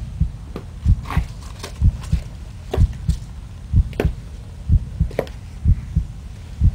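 Steady low thumping, the strongest beats coming about once a second with lighter beats between, like a heartbeat, mixed with sharper taps.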